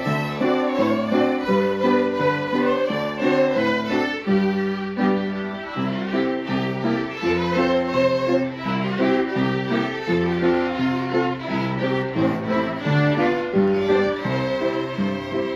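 Fiddle ensemble playing a tune together, with a low bass line beneath.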